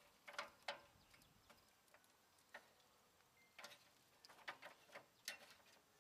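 Faint, irregular clicks and clacks of metal grill tongs against the grill grate as slabs of spare ribs are turned over, in a cluster just after the start and another in the second half.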